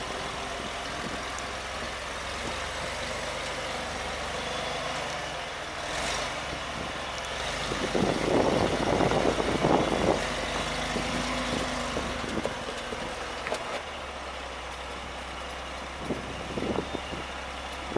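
Off-road vehicle engine running at low revs, with a louder spell of throttle about eight to ten seconds in.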